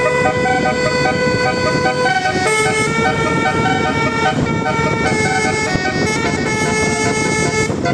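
Bus telolet horn, a multi-tone horn playing a tune of held chords that step to new pitches every second or two, over the rumble of the bus.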